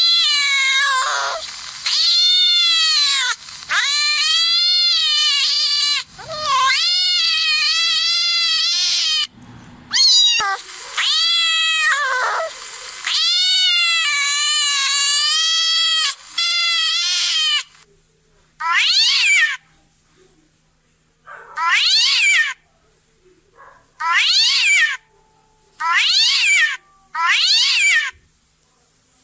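Cats meowing: a long run of drawn-out, wavering meows with barely a gap, then five short separate meows spaced a couple of seconds apart.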